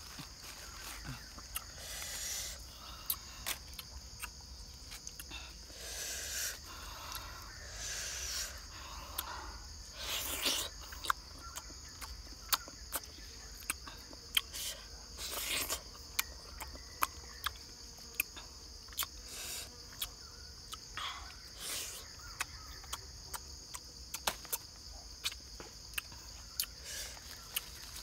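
Steady high-pitched drone of insects in tropical rainforest, with frequent irregular sharp clicks and a handful of short rustling or scraping noises.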